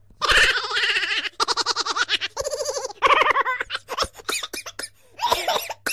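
Minions laughing: high-pitched, rapid, giggling cackles in several bursts, ending in short choppy chuckles.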